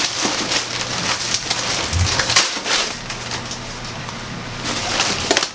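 White packing paper rustling and crinkling as it is pulled and handled out of a cardboard box, a continuous crackle with sharper crinkles throughout.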